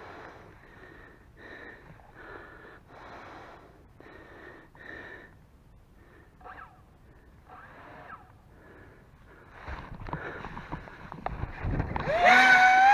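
Quick rhythmic breaths, about one every second, then low rumbling thumps. Near the end, the twin electric motors of a 3D-printed RC paramotor spool up with a loud rising whine that settles to a steady pitch at takeoff throttle.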